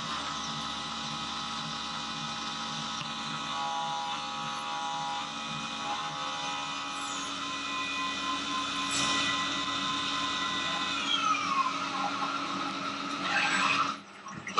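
Syil X7 CNC milling machine cutting a metal block under flood coolant: a steady spindle whine made of several tones over coolant hiss. About eleven seconds in the tones fall in pitch together as the spindle spins down, and a short rush of noise follows just before the end.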